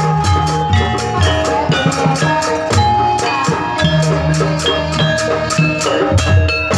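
Lively dance accompaniment music: a fast, even drumbeat of about four strikes a second under ringing, pitched metal-percussion and melody notes.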